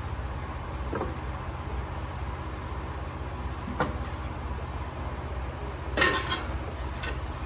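A few light knocks and a short clatter about six seconds in, from paint mixing cups and bottles being handled while candy paint is measured and mixed, over a steady low machine hum.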